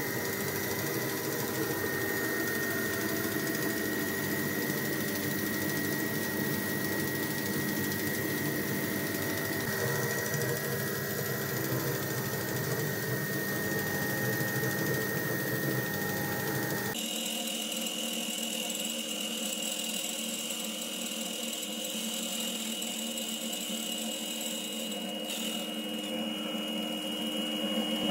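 Homemade band saw with a plywood frame and MDF wheels running at speed, its electric motor driving the spinning wheels and blade with a steady whine. About two-thirds of the way through, the sound changes abruptly to a thinner, higher-pitched running tone.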